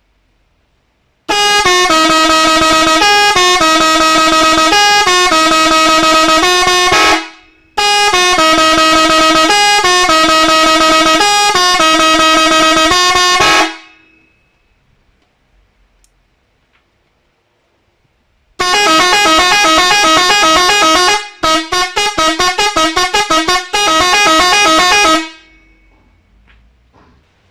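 Multi-trumpet musical car horn with trumpets of 31, 35 and 39 cm, loudly playing a stepped melody note by note. The melody sounds twice, then after a pause comes a second tune with a run of rapid, short repeated notes in its middle.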